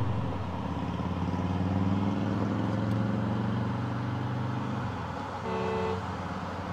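A low, steady engine drone for about five seconds that then fades out, followed by a short higher-pitched tone, over a haze of wind noise.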